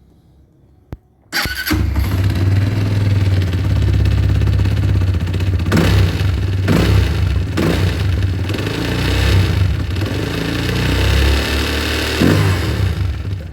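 A Haojue DR160 motorcycle's single-cylinder four-stroke engine starts about a second and a half in, after a single click, and then runs with several short surges in the revs.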